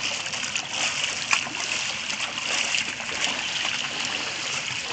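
Feet in flip-flops wading through ankle-deep floodwater on pavement: a steady wash of moving water with many small splashes.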